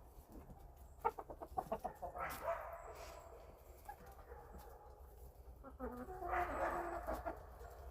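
Chickens clucking: a quick run of short clucks about a second in, then longer drawn-out calls around two seconds and again near six seconds.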